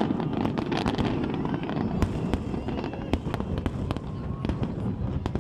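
Fireworks going off: a dense, irregular run of pops and bangs over a continuous rumble, with a couple of sharper, louder cracks about two and three seconds in.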